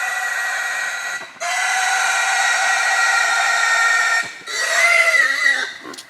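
Wild hog squealing in long, loud, high-pitched screams, broken by two short gaps, the last scream wavering in pitch before fading.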